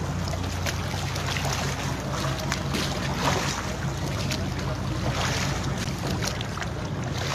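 Boat engine running with a steady low hum, under wind buffeting the microphone and water splashing against the hull.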